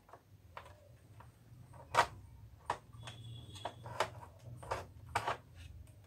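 Irregular clicks and knocks from the plastic mechanism of an opened Epson L361 inkjet printer being handled, the sharpest about two seconds in, over a low steady hum.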